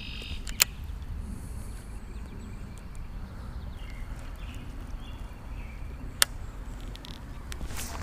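Steady low wind rumble on the microphone, with two sharp clicks, one about half a second in and another about six seconds in, from a Shimano Casitas baitcasting reel being handled during a cast and retrieve.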